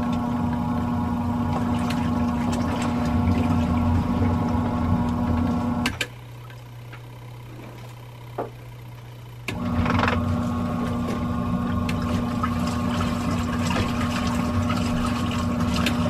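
Twin-tub portable washing machine's wash motor running the wash cycle: a steady hum for about six seconds that stops with a click, a pause of a few seconds, then the hum starts again, the stop-start agitation of the wash tub.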